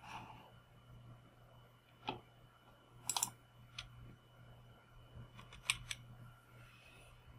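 Faint, scattered computer mouse clicks over a low steady hum: a single click about two seconds in, a quick pair about a second later, another single click, and another pair near the end.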